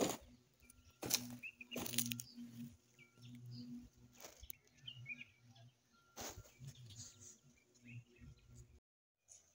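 Faint bird chirps here and there, with about five sharp crunching knocks spaced irregularly among them.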